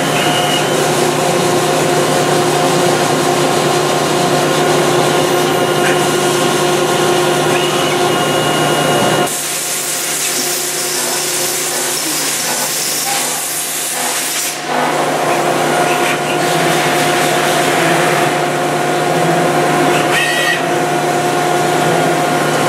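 Citizen A320 Swiss-type CNC lathe running a machining cycle behind its closed door, with coolant spraying in the work zone: a steady machine whine made of several held tones over a low hum. About nine seconds in, the hum drops away and a hiss takes over for about five seconds before the steady tones return.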